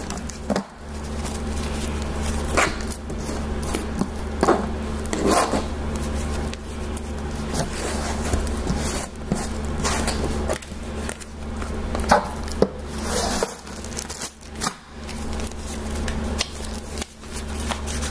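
Tarot cards being shuffled and handled by hand: irregular swishes, slaps and clicks of the cards, over a steady low room hum.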